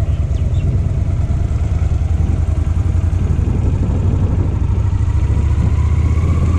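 Honda Shadow cruiser's V-twin engine running as the motorcycle pulls out and rides off, with a whine that rises in pitch near the end as it gathers speed.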